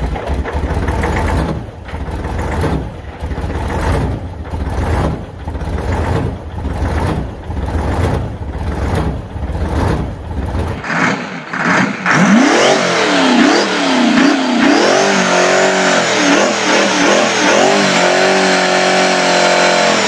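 Two-stroke Detroit Diesel V12 engine sound from two recordings. First a heavy, low engine note that swells and fades a little more than once a second. Then, after a cut about 11 seconds in, an engine revved up and down over and over, its pitch sweeping high and low, with a high whine near the end.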